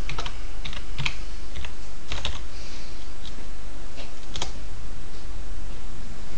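Computer keyboard keys being typed, a password entered at a sudo prompt: a run of irregular keystroke clicks, the loudest about four and a half seconds in, over a steady low hum.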